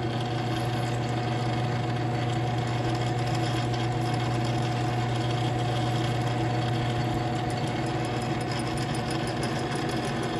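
Drill press motor running steadily while its twist bit bores slowly down through the length of a steel bolt: an even hum with a fixed thin whine above it.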